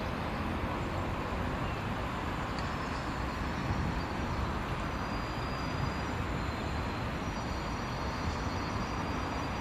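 A British Rail Class 143 Pacer diesel multiple unit approaching slowly along the platform, its underfloor diesel engines running steadily. Faint high-pitched squealing joins about halfway through.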